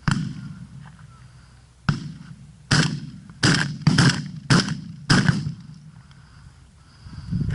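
Seven sharp bangs in about five seconds. The first comes at the start and has a long, low rumbling tail. After a pause, six more follow in quick succession, each dying away over a fraction of a second.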